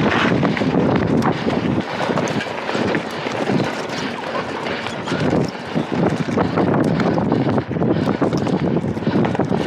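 Wind rushing over a small action camera's microphone on a mountain bike ridden at speed over a cross-country course, with many short knocks and rattles from the bike over rough ground.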